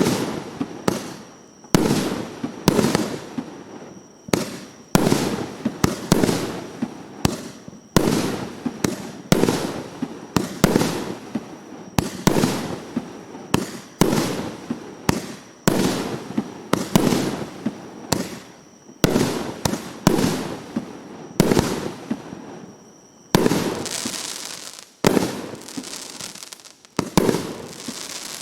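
A 300-shot, 1.2-inch firework cake firing shot after shot. It gives sharp bangs roughly every half second to a second, each trailing off in a crackle. A denser crackling stretch comes near the end.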